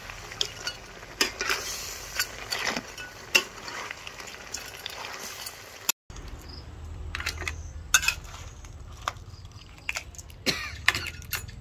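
A metal spatula scrapes and knocks around a wok as paddy crabs and herbs are stir-fried over a sizzle. After a cut about halfway through, a metal spoon clinks against a steel serving bowl and plates as the crab is dished out.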